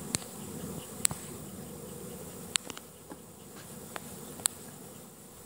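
Honeybees buzzing in numbers around hive boxes, a steady low hum from an active swarm. A few sharp ticks stand out from the hum, about four times.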